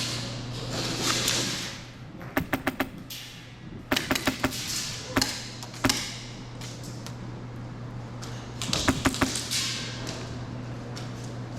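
Airsoft gunfire: a quick burst of about five shots a couple of seconds in, another rapid burst soon after, two single shots, then a last short burst near the end.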